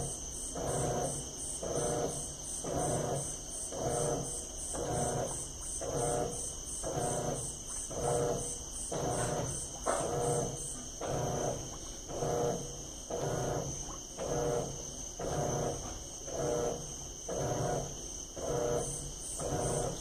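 Electrolux LT12F top-loading washing machine agitating a full tub of water and clothes in its rinse cycle: a rhythmic sloshing swish about once a second as the agitator turns back and forth. A steady high-pitched trill runs behind it.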